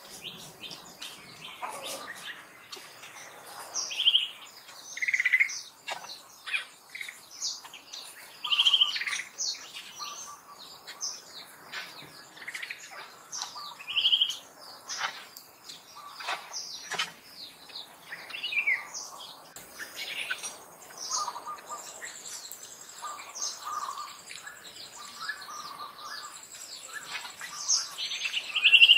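Forest birds chirping and calling in many short, separate notes, a few of them louder. A high, steady insect buzz joins about two-thirds of the way through.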